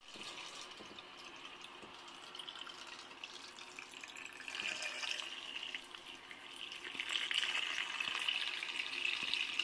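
Tap water running in a thin stream onto potatoes in an enamel pot as they are rinsed, a steady splashing that grows louder over the last few seconds.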